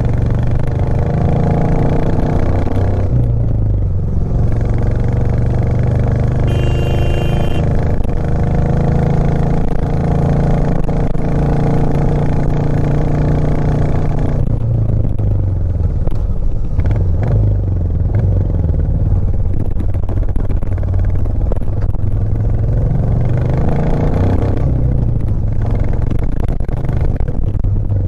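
Royal Enfield Classic 350's 349 cc single-cylinder engine running under load on the move, its revs falling off about halfway through and rising again a few seconds before the end. A brief high tone, about a second long, sounds about seven seconds in.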